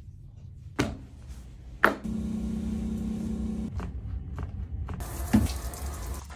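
Two sharp knocks, then a grooming tub's bathing system running: a steady hum with water flowing for about two seconds, then a louder spray of water near the end with a knock in it.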